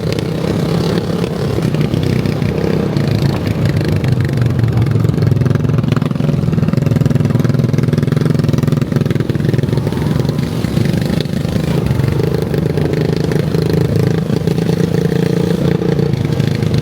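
ATV engine running steadily under way.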